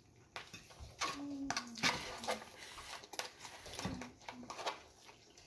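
Close-up eating: a fork clicking and scraping on a ceramic plate and chewing of rice, ground beef, kimchi and crisp lettuce, heard as irregular clicks and crunches. A few brief pitched vocal sounds come in the background.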